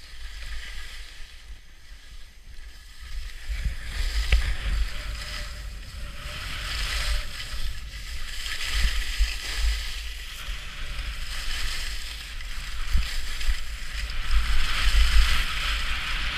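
Skis scraping and carving over packed snow, with a swell of hiss on each turn, while wind buffets the action camera's microphone with a low rumble; both grow louder as the skier picks up speed.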